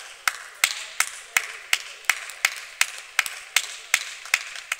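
One person clapping steadily and close by, sharp even claps at about three a second.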